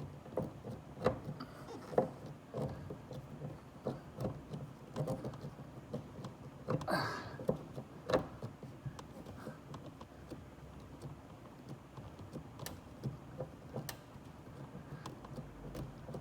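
Scattered clicks, taps and light knocks of a plastic interior sail panel being handled and pressed into place against the car's roof pillar, with a brief scrape about seven seconds in.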